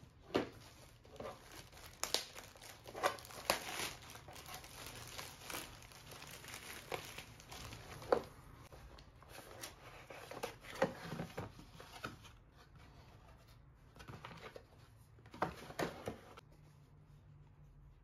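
Paper and cardboard packaging crinkling and rustling as skincare products are unpacked by hand, in a run of sharp crackles that stops about a second and a half before the end.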